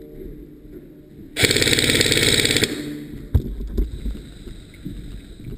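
Airsoft gun firing one rapid full-auto burst of a little over a second, starting about a second and a half in. Scattered short knocks follow.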